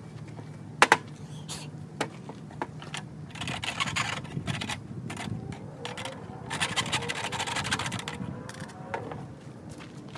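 Cordless drill boring a 1/2 inch hole through a thin tin-can lid, the bit scraping and grinding through the sheet metal in two stretches. A couple of sharp clicks come about a second in.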